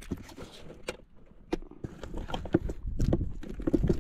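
Irregular knocks, taps and scuffs as a caught fish is handled into a styrofoam cooler box, busier in the second half.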